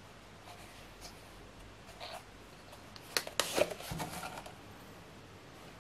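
A steel-bladed knife being drawn from its leather sheath: a quick cluster of sharp clicks and leather scraping about three seconds in, then brief rustling of the leather.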